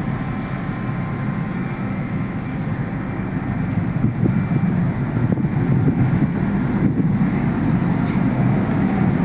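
Steady low rumble of the moored ferry's engines and machinery, getting a little louder about four seconds in.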